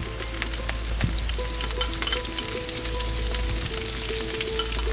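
Butter and rendered lamb fat sizzling and crackling in a hot pan of seared lamb racks as a spoonful of butter is added to the fat.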